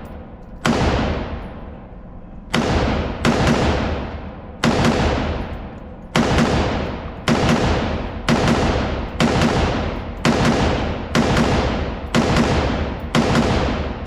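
A firearm fired in slow single shots, about thirteen in a row at roughly one a second. Each shot is a sharp crack that rings on and fades in the range.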